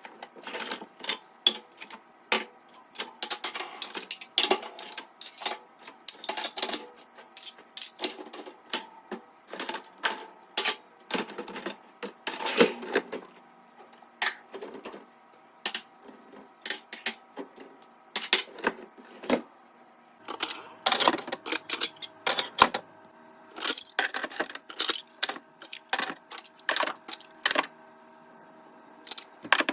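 Dishes, glasses and cutlery clinking and clattering in quick, irregular knocks as a dishwasher is unloaded, with a few louder bursts of clatter around the middle and later on.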